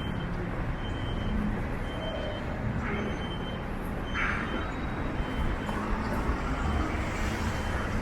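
Downtown street traffic at night: a steady wash of passing cars, buses and trucks, with a short high beep repeating about once a second.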